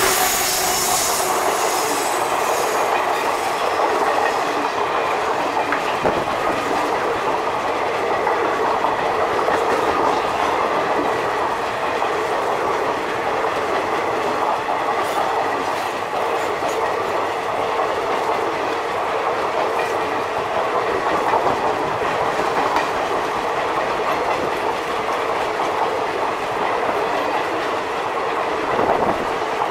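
Passenger train of coaches passing close by at speed, a steady, loud rumble with the wheels clacking over the rail joints.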